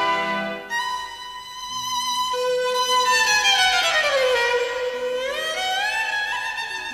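Instrumental opening of a 1990s Hindi film song: a violin melody holds a long note, slides slowly down in pitch from about three seconds in, then climbs back up in steps near the end, over soft held accompaniment.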